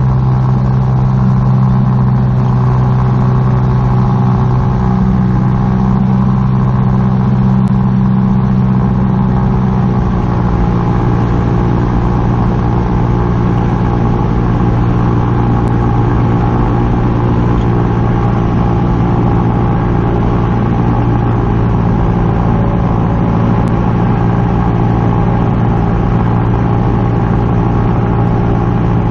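Icon A5 flying boat's Rotax four-cylinder engine and pusher propeller running steadily in flight, with a steady drone and rush of air on the nose-mounted microphone; the pitch dips slightly about ten seconds in as power comes back on the approach to the water.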